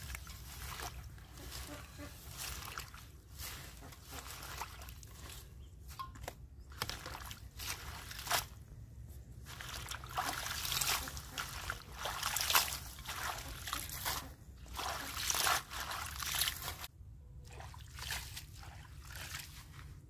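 Hands swishing and rinsing a bowlful of fresh herbs in water in a steel bowl: irregular sloshing, splashing and dripping, loudest and busiest in the middle.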